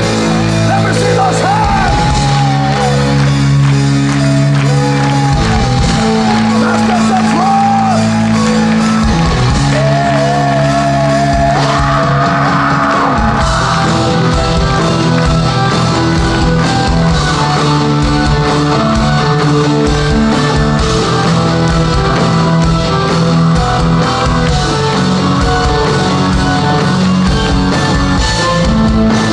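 Heavy metal band playing live at full volume, with distorted guitars and drums. A wavering sung vocal line runs through about the first twelve seconds, then the instruments carry on without it.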